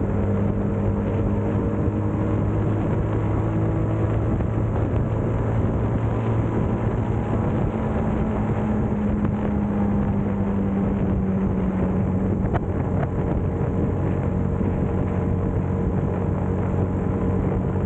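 Motorcycle engine running at a steady cruise, with wind and road noise over it. The engine note drops a little about two-thirds of the way through.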